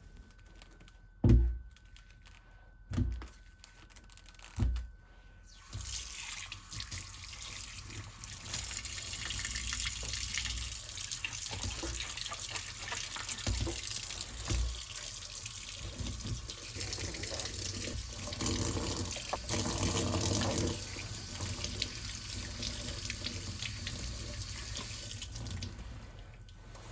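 A few sharp knocks, then a kitchen tap running steadily into the sink for about twenty seconds.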